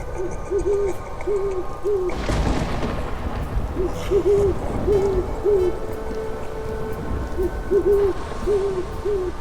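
Owl hooting in a repeated phrase of four or five short hoots, the phrase coming three times about every three and a half seconds, over a dark, droning ambient score. A low rumbling whoosh swells up about two seconds in and fades a second later.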